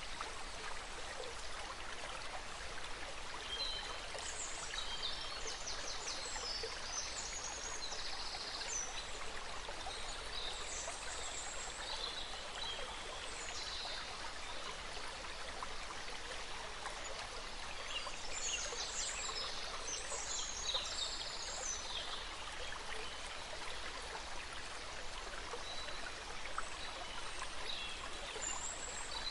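Steady rush of running water, like a stream, with spells of high bird chirps and trills over it, coming and going several times.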